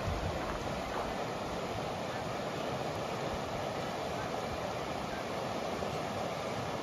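Fast, shallow mountain river rushing steadily over rocky rapids and gravel bars.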